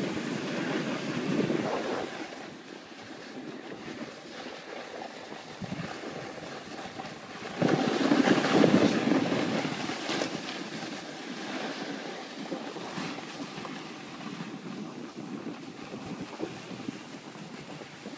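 Wind buffeting the microphone together with the rushing hiss of riding over packed snow, swelling loudest for about two seconds roughly eight seconds in.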